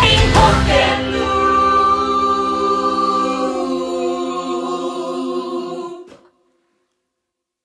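The song's final held chord: the band and drums drop out about a second in, leaving several voices singing one long sustained chord. The chord fades and breaks off about six seconds in.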